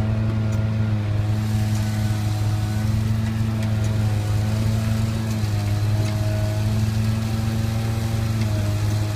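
Pothole-patching truck running steadily with a low drone, its front spray boom hissing as it blows air and material into a pothole; the hiss grows louder about a second in.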